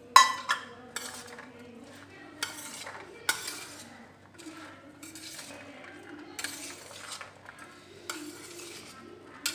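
A metal slotted spoon clinks sharply against a stainless steel bowl just after the start, ringing briefly. Then a moist sprouted-chickpea salad is tossed by hand in the bowl, with soft intermittent rustling and squishing.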